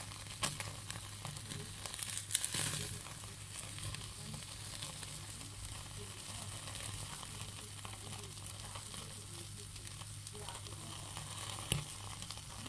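Skewered marinated chicken pieces sizzling over an open gas-burner flame as they are browned, with a few sharper crackling pops, the loudest about two seconds in and another near the end.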